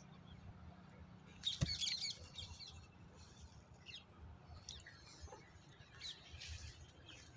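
Small birds chirping, with a quick flurry of calls about a second and a half in and scattered single chirps after. A single sharp knock lands in the middle of the flurry.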